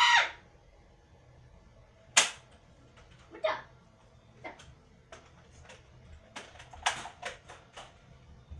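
Nerf foam-dart blasters firing. There is one loud sharp snap about two seconds in, a few scattered clicks, then a quick run of sharp clicks and snaps in the last two seconds. A child's brief yell cuts off right at the start.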